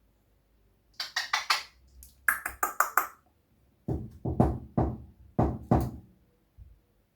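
Three quick runs of sharp taps and knocks: about four light, bright clicks about a second in, five more a second later, then five heavier, deeper knocks from about four to six seconds in.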